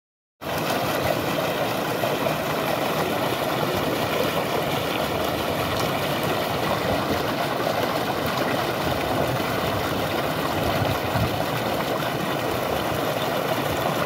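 Heavy, steady gush of water pouring from a 25 HP submersible pump's large outlet pipe and plunging into a full concrete tank: a constant loud splashing rush at full flow.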